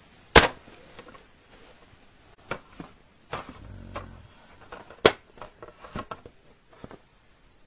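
Plastic DVD case and disc being handled: a sharp snap about half a second in, then scattered clicks and taps as fingers press on the disc at the case's centre hub, with another sharp click about five seconds in.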